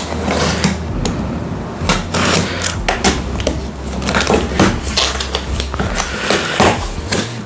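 Box cutter slitting the packing tape along a cardboard parcel's seam, then the cardboard flaps being pried up and folded open, a run of irregular scrapes, crackles and rustles.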